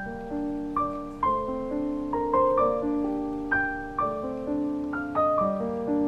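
Background music: a gentle piano melody, several notes a second, each struck and left to ring as it fades, with lower notes held underneath.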